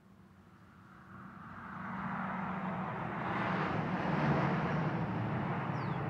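A car driving past: tyre and engine noise swells over about three seconds, peaks a little past the middle, then begins to fade.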